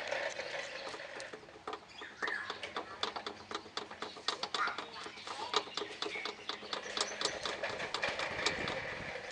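Rapid, irregular light clicks and taps from a car's rear stabilizer link being knocked and shaken: the 'tek tek' rattle of a worn link, taken as the source of the clunking from the rear of the car on rough roads.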